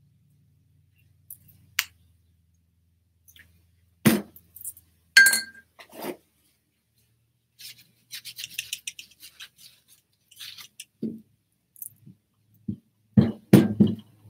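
A clear acrylic stamp block with a rubber stamp clicks and knocks against the paper and table, one knock with a short glassy ring. In the middle a paper towel rubs and scratches over the paint-inked rubber stamp to wipe it. Near the end comes a quick cluster of louder knocks.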